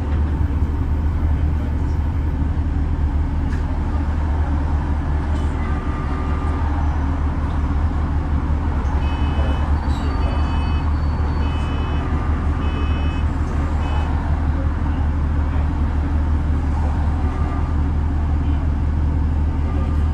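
Bus running, heard from inside the passenger saloon: a steady low engine and road rumble. About halfway through comes a run of about five short, high beeps, roughly one a second.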